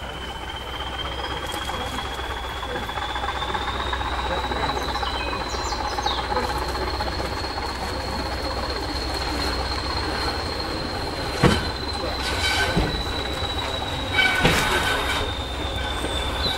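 Train wheels squealing as a locomotive-hauled train rolls slowly in over curved track and points: one steady high squeal that rises slightly, then eases, over a low rumble. A few sharp clanks come from the wheels crossing rail joints, the loudest about eleven and fourteen seconds in.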